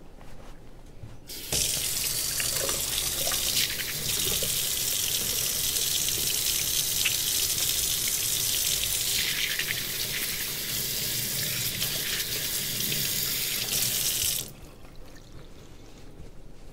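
Kitchen sink faucet running while hands are washed under it: a steady rush of water that starts about a second and a half in and is shut off abruptly a couple of seconds before the end.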